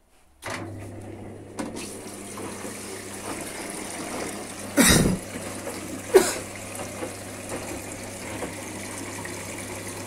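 Indesit front-loading washing machine filling: water rushes into the drum with a steady low hum, starting about half a second in. Two loud thumps come near the middle.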